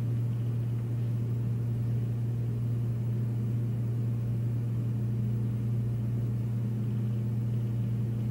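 Steady low hum of room and equipment noise, unchanging throughout, with no other distinct sound.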